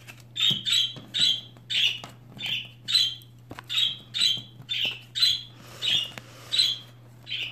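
Repeated short, high-pitched squawking calls, about two a second, each one brief and much the same as the last, over a faint steady low hum.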